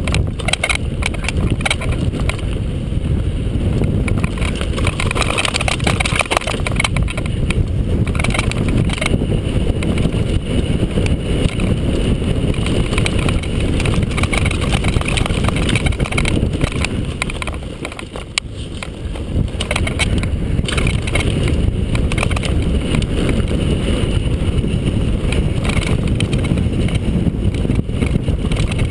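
Mountain bike descending a rocky dirt trail: wind buffets the mount-camera's microphone, over the rumble of tyres on dirt and gravel and frequent clicks and knocks from the bike rattling over stones. It eases briefly about two-thirds of the way through.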